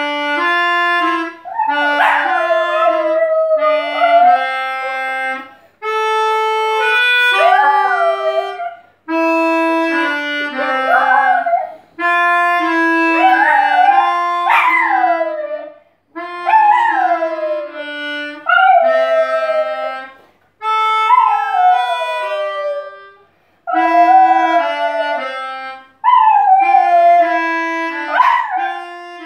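A Jack Russell terrier howling along to a melodica. The melodica plays a slow tune in short phrases of held notes with brief pauses between them, and the dog's howls slide up and fall away over the notes.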